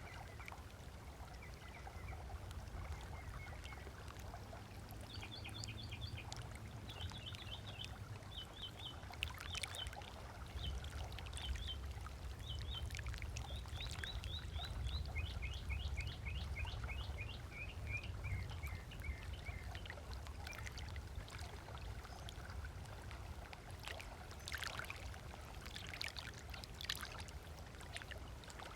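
Small waves lapping on a sandy lakeshore beach, with scattered light splashes. A songbird sings runs of quick repeated chirps from about five seconds in until nearly twenty seconds, over a low steady rumble.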